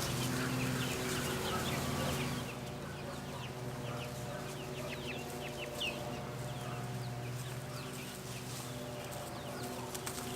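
A flock of eight-week-old chicks peeping and clucking, many short high chirps overlapping, over a steady low hum.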